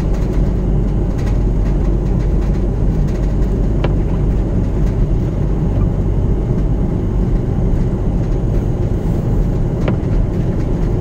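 Steady low rumble inside a car's cabin as it drives slowly along a snow-covered road: engine and tyre noise, with a couple of faint ticks.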